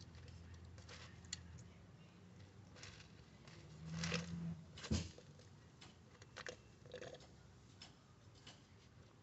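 A toddler eating, heard faintly: quiet chewing with scattered small clicks and knocks, the sharpest knock about five seconds in.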